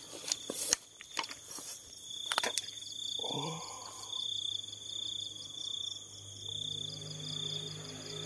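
Crickets chirping in a steady, high, pulsing trill, with a few sharp clicks and knocks of handling in the first three seconds and a low steady drone joining about two-thirds in.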